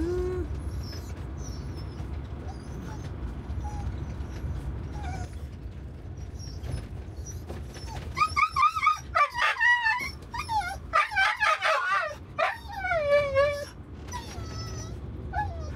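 A dog whining and yipping: faint whines in the first half, then a loud run of high, wavering whines and yelps from about halfway in until shortly before the end, over a low steady rumble.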